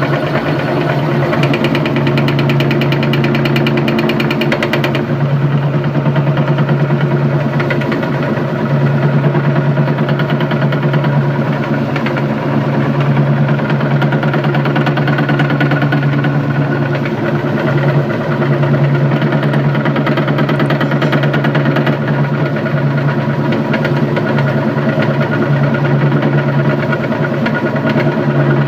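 Electric meat grinder motor running steadily with a low hum as it grinds Oreo cookies, with a fast rattle over the first few seconds.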